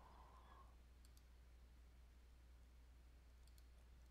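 Near silence: faint room tone with a low hum, broken by a few faint computer mouse clicks, a pair about a second in and a small cluster near the end, as points of a Bezier mask are placed.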